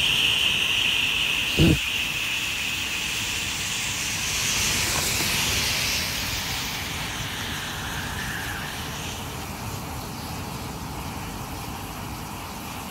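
A container of sucrose rocket fuel burning in a tall flame: a steady rushing noise, loudest at the start and slowly dying down. A short, low thump comes about a second and a half in.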